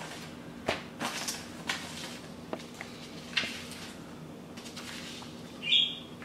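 Wooden Scrabble tiles being moved and set down on a table: scattered light clicks and short scrapes. A brief high-pitched squeak near the end is the loudest sound.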